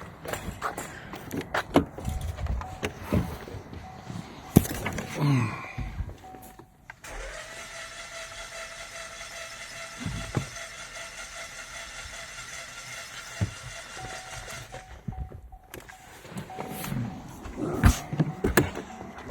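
Starter motor cranking a 2018 Chevy Malibu's engine steadily for about eight seconds, starting about seven seconds in, to read compression on cylinder 2 of an engine ruined by overheating with no coolant. Before and after it, scattered knocks and clicks.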